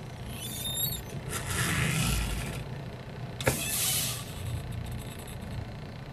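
Truck engine and road rumble heard from inside the cab, with two bursts of hiss, one about a second and a half in and one about three and a half seconds in, the second led by a sharp click.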